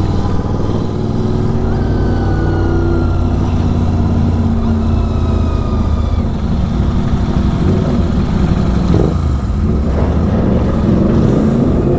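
Superbike engine with an aftermarket exhaust running steadily under way, its pitch slowly sagging and then picking up again.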